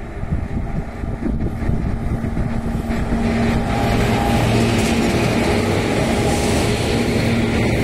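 An electric locomotive hauling a container freight train passes close by: a rumble of steel wheels on rail with a steady electric hum. It gets louder about three seconds in as the locomotive comes alongside, and the container wagons follow.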